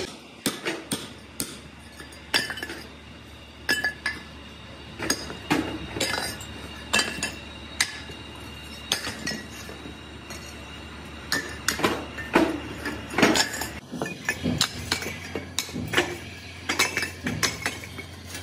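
Hammer striking freshly cast cast-iron cylinder sleeves to knock off their runners and gates: irregular sharp metallic clinks, about one or two a second, each with a brief ring.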